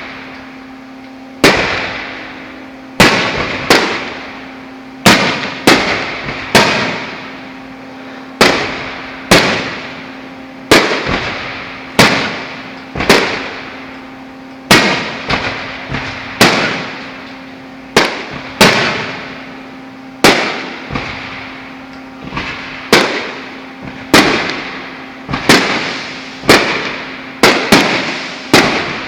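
Fireworks going off in a steady run of sharp bangs, roughly one a second and sometimes two in quick succession, each trailing away in an echo.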